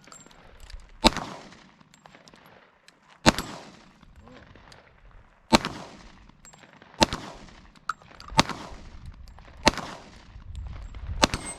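Sig Sauer P320 X-TEN 10mm pistol fired seven times in slow, aimed shots about one and a half to two seconds apart, each shot followed by a short echo.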